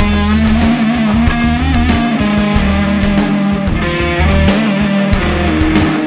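Rock music: electric guitar over bass and drums.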